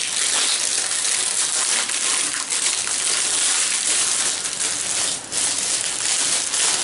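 Plastic shrink-wrap being crinkled and pulled off a booster brick box, a dense, continuous crackling that eases briefly about five seconds in.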